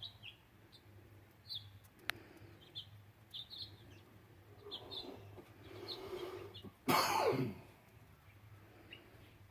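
Small wild birds chirping in short, high notes, on and off, around backyard seed feeders. About seven seconds in there is a single short, loud burst with a falling pitch.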